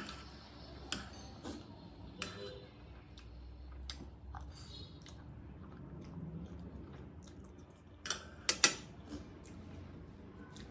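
A person eating instant noodles: quiet chewing and mouth sounds with scattered short sharp clicks, a louder cluster of clicks about eight seconds in.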